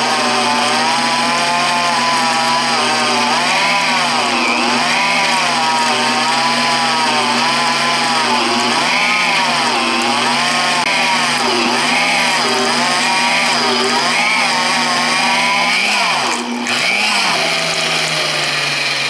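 VEVOR magnetic drill press motor driving an annular cutter through quarter-inch steel plate at a slow speed setting. Its pitch holds steady briefly, then rises and falls repeatedly, about once a second, as the load-sensing speed control hunts. Near the end there is a brief dip, then the motor runs steadily.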